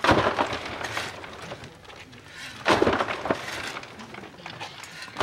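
A shovel scooping loose earth and tossing it into a grave, three times about two and a half seconds apart, each shovelful starting suddenly and trailing off in a rattle of falling soil.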